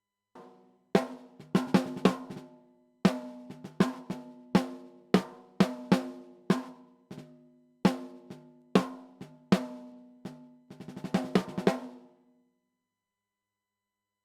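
Recorded snare drum track playing on its own. Single hits at an uneven pace each ring on at a clear pitch, then a quick roll comes about eleven seconds in and rings out.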